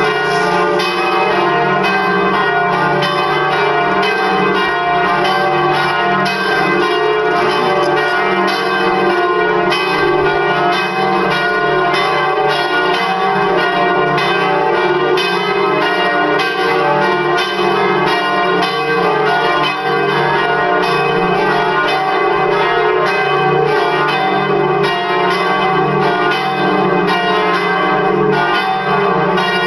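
Four swinging church bells, tuned D, D sharp, F and G, ringing together in full peal. Their strokes repeat in a steady, overlapping stream.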